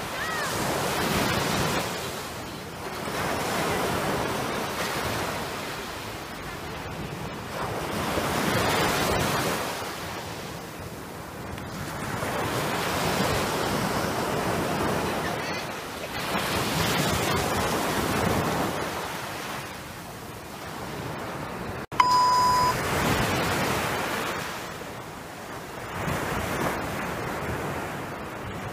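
Small waves breaking and washing up on a sandy beach, the surf swelling and fading about every four to five seconds. About three-quarters of the way through, a sharp click and a brief high beep.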